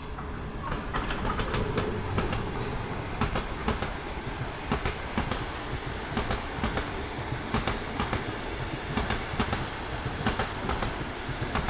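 Train passing close by: a steady rumble with wheels clicking over the rail joints in quick irregular groups.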